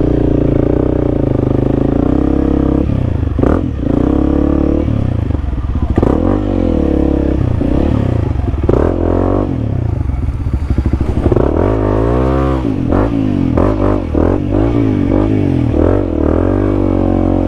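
Honda CRF300L's single-cylinder engine revving up and down again and again as the bike struggles through mud, the throttle blipped over and over while the rear wheel spins. The bike is bogging down and getting stuck.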